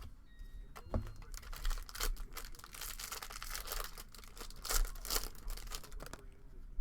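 A trading card pack wrapper being torn open and crinkled, a dense crackling rustle with a light knock about a second in.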